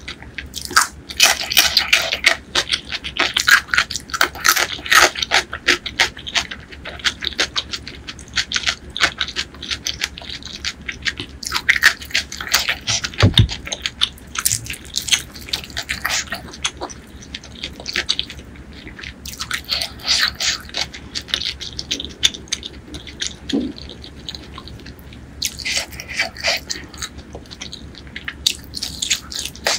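Close-miked wet eating sounds: chewing and lip-smacking on spicy chicken curry, with sticky squelches of curry-coated fingers pulling meat off a chicken drumstick. There is one low knock about halfway through.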